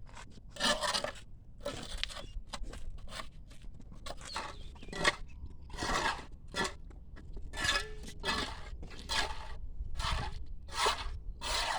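Hand tools scraping over a rough construction surface in about fifteen quick, irregular strokes, roughly one or two a second.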